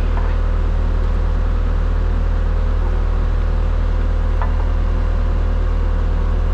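ASV SR-80 skid steer's diesel engine idling steadily with an even low rumble.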